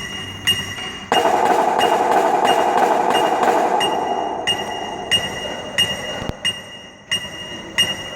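Marching percussion ensemble opening its show with a steady ringing tick, like a wood block or small bell, about every two-thirds of a second. A sustained tone swells in about a second in and fades out over the next several seconds.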